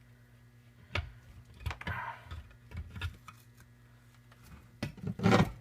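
Small metal engine parts clicking and knocking as a 70cc Chinese quad engine's split crankcase is taken apart by hand, with a louder cluster of knocks near the end.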